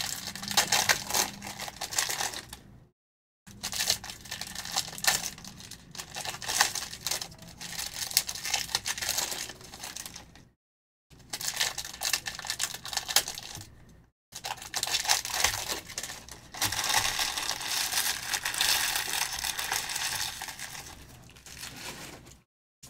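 Trading-card packs being torn open, with foil wrappers crinkling and cards handled: a run of crackling and tearing that cuts out completely a few times for a fraction of a second.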